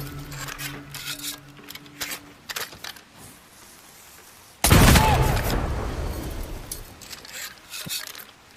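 Tanegashima matchlock gun firing a single shot about halfway through: a sudden loud blast that dies away over a few seconds. A few light clicks come before it.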